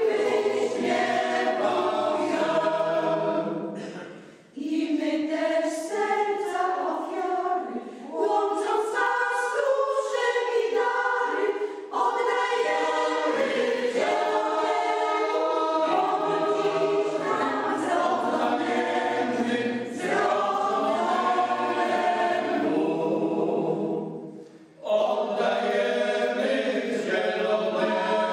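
Choir singing, with two short breaks between phrases: about four and a half seconds in and again near the end.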